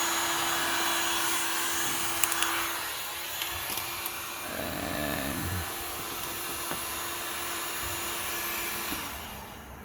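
Heat gun blowing steadily, warming cold door-sheet glue so it softens; it switches off about nine seconds in.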